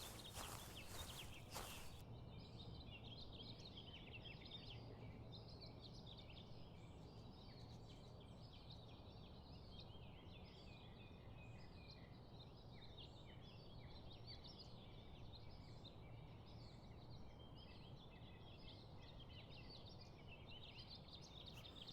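Faint chorus of wild songbirds, many short chirps and trills overlapping. A few footsteps sound in the first two seconds.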